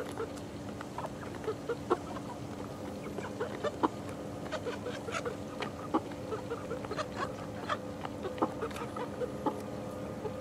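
A flock of 11-week-old young chickens clucking, with many short sharp taps scattered throughout.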